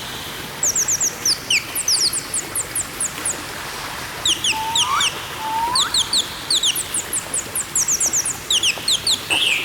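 Pet parrots chirping: quick runs of short, very high chirps, with two lower rising whistles about five seconds in and a louder squawk near the end.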